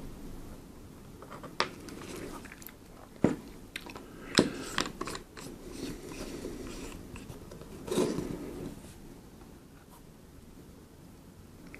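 Close-up handling noise of hands working on small camera parts and tools: scattered sharp clicks and taps, with a cluster of clicks about four seconds in and a rustling scrape near eight seconds.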